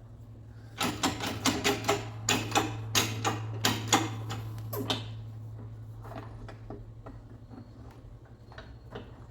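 Camshaft gear being pressed onto its lobe piece in a bench press, giving a quick run of sharp metallic clicks and knocks, about three a second, over a steady low hum. The clicks thin out to a few faint ones after about five seconds. The gear is heated and the lobe chilled to ease a tight interference fit.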